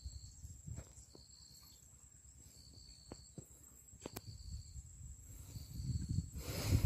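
Insect chirping in short high bursts about every second and a half over a steady high whine, with low rumbling noise underneath. Near the end a louder rushing, rustling noise rises briefly.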